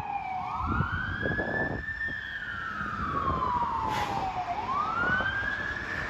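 Fire engine siren wailing: the pitch climbs over about a second and a half, slides slowly back down, then climbs again near the end. Under it is the low rumble of the truck moving off.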